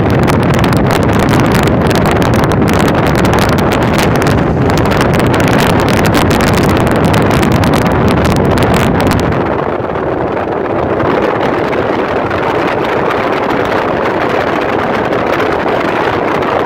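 Steady rush of wind on the microphone with road noise from a moving vehicle; the hiss turns duller and a little quieter about nine and a half seconds in.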